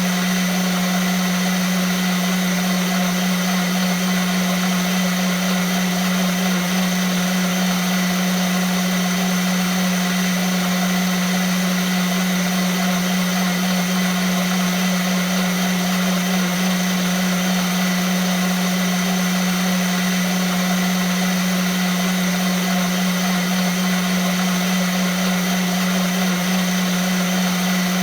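Vitamix blender running steadily, a constant whir with a strong low hum under a hiss.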